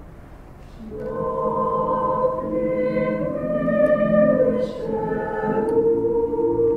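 High school choir singing unaccompanied in parts, a sung phrase resuming about a second in after a short breath, then holding sustained chords.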